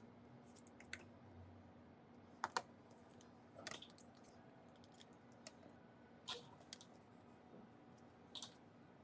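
Scattered light clicks and taps of small hand tools on an iPad Pro during charging-port repair work, the loudest a quick double click about two and a half seconds in, over a faint steady hum.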